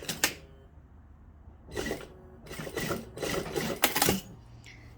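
Fabric of a dress being handled and pulled at a sewing machine: a couple of sharp clicks near the start, then irregular rustling and shuffling from about two seconds in to about four.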